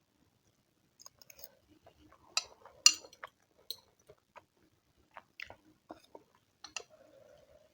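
Close-miked chewing: scattered wet mouth clicks and smacks, with the sharpest crackle about three seconds in.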